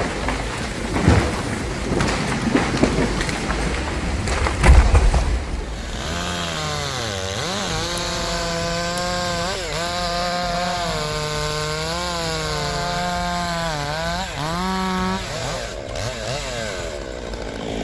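A chainsaw's two-stroke engine running at high revs while cutting wood, its pitch dipping and recovering several times under load. Before it, a few seconds of rough noise with heavy thuds.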